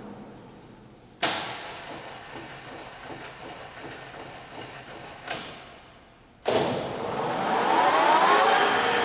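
LeBlond Regal Servo Shift engine lathe changing spindle speed. The spindle winds down and there are sharp clunks about a second in and again about five seconds in as the gearbox shifts. About six and a half seconds in the drive starts suddenly and the spindle spins up, its gear whine rising in pitch and then holding steady.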